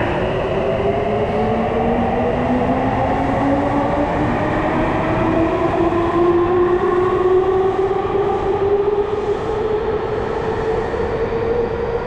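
Electric subway train pulling out of the station, its traction motors whining in a tone that rises steadily in pitch as it accelerates, over the rumble of wheels on rail.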